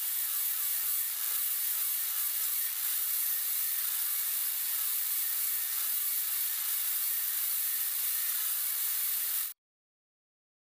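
A steady hiss of static-like noise, strongest in the high pitches, that cuts off abruptly about nine and a half seconds in.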